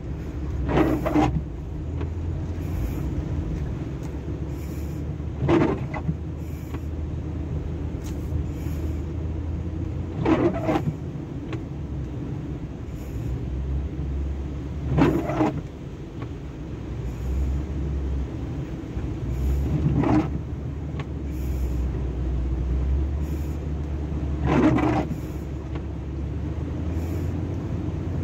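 Steady low rumble of a car driving through flood water, heard inside the cabin, with a windshield wiper sweeping across the glass about every five seconds, six sweeps in all.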